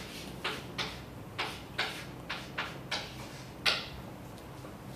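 Chalk writing on a blackboard: about eight short tapping, scraping strokes as the letters and symbols are written, the loudest near the end.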